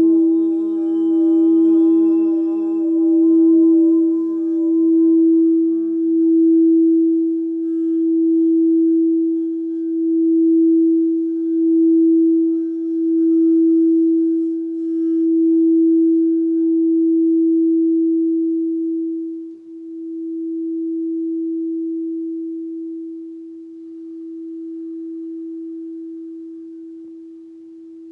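Frosted quartz crystal singing bowl played by a mallet circling its rim, giving one steady tone that swells and dips in a slow pulse. About twenty seconds in the mallet leaves the rim, and the bowl rings on, slowly fading.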